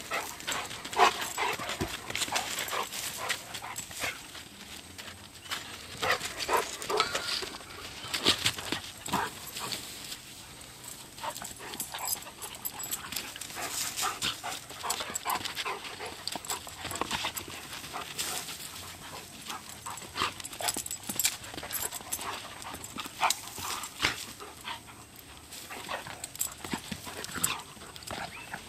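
Two dogs play-wrestling: a continuous, irregular run of scuffles, paw steps and breaths.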